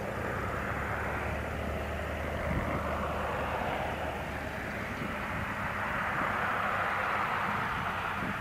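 Cessna 208B Grand Caravan's Pratt & Whitney PT6A turboprop and propeller droning steadily as the plane flies in on its landing approach, swelling a little as it comes closer.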